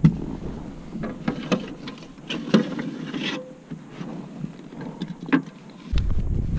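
Scattered light knocks and clicks of a landed bass and gear being handled aboard a kayak, some two to three a second at times. About six seconds in, a low wind rumble on the microphone sets in.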